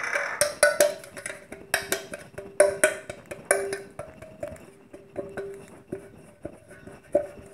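Metal pressure-cooker container tapped and knocked repeatedly by hand to spread a dusting of flour over its buttered inside: a quick, uneven run of knocks, each leaving a short metallic ring, thinning out over the last few seconds.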